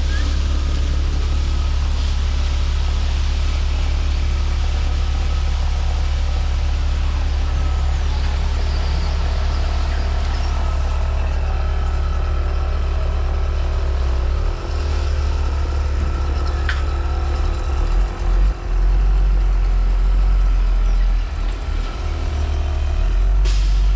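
A truck engine running with a steady deep rumble. Its note shifts and dips unevenly in the second half.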